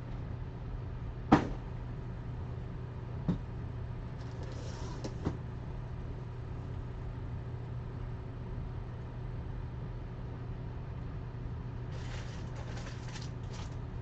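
Steady low hum with a sharp knock about a second in, two fainter clicks after it, and light rustling and clicking near the end.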